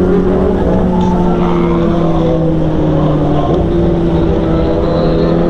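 Honda CBR1000RR SP's inline-four engine running steadily while riding, its pitch sagging slowly and then lifting slightly about three and a half seconds in, with wind rumble over the microphone.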